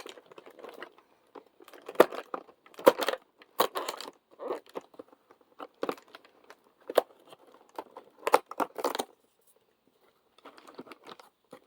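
Fidget-toy advent calendar packaging being torn open and its wrapping crinkled by hand, in irregular sharp rips and rustles.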